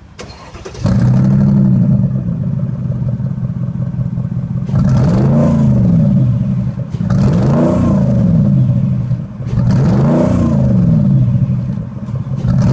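Mercedes-Benz SLR McLaren's supercharged V8, through a Devil Sports aftermarket exhaust, starts up sharply about a second in and settles to a steady idle. It is then revved in four short throttle blips, each rising and falling in pitch, with idle between them.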